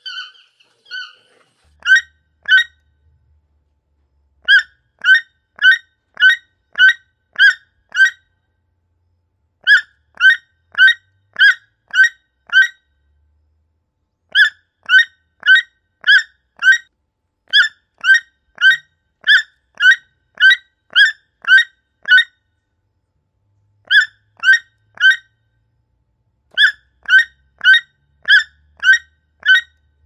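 Toucan calling: short, sharp calls repeated about two a second in runs of a few to a dozen or more, with silent gaps of a second or two between the runs.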